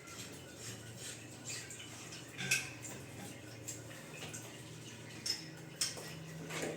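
Faint scattered clicks and light knocks, with sharper ones about two and a half and five and a half seconds in, over a low steady hum.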